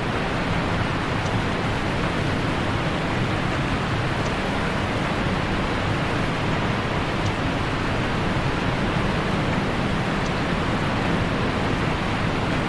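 Steady, even rushing of water with no change in level.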